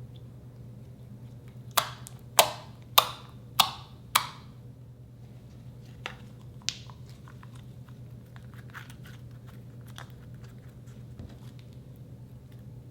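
Slime being pressed and handled, giving five sharp pops about half a second apart, then two softer pops and faint crackling, over a steady low hum.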